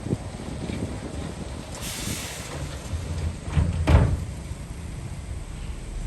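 Heavy earthmoving machinery working: a low diesel engine rumble with scattered knocks and clanks. A hiss comes about two seconds in, and the loudest clank about four seconds in.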